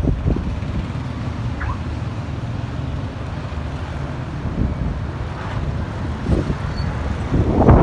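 Storm wind buffeting the microphone as a low, uneven rumble over street traffic, with a louder rush near the end.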